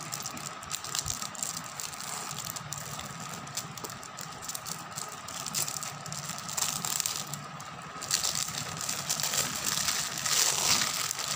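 Packaging being opened by hand: a pen box and its wrapping rustle, scrape and click. The handling grows louder and denser in the last few seconds.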